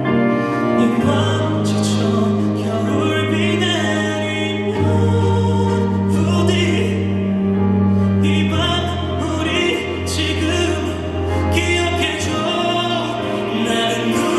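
Live ballad music played loud over a concert sound system, an instrumental passage with long held bass notes that change every three to four seconds under chords and sharp accents.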